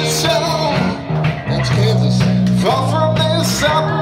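A live band playing loud amplified music: guitar and bass under a singer's voice.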